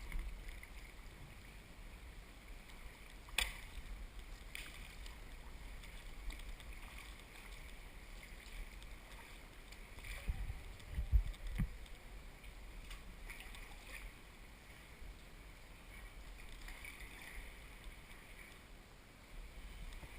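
Kayak paddle strokes dipping and splashing in the water, with water lapping at the hull over a steady low rumble. There is a sharp click about three seconds in and a few low thumps around the middle.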